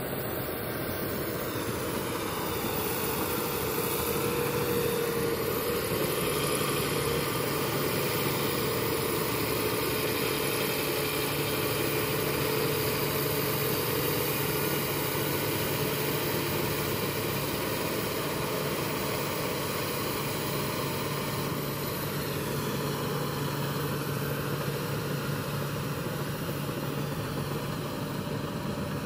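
Heavy diesel engines of a Case Steiger tractor pulling two K-Tec scraper pans and a Cat D8 dozer push-loading the rear pan, with a steady engine drone.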